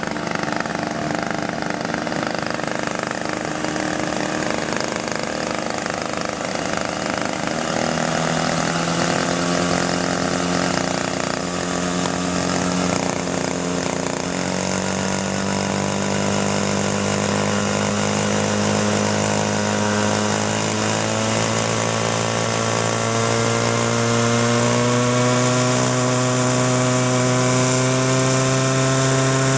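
Hirobo Huey gasser RC helicopter's small two-stroke gasoline engine running, its pitch stepping up about a quarter of the way in and again near halfway, then climbing steadily as the engine and rotor spool up.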